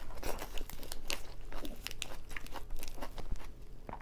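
Fresh lettuce being chewed with crisp crunching and a leaf torn by hand: many quick crackly snaps that ease for a moment near the end.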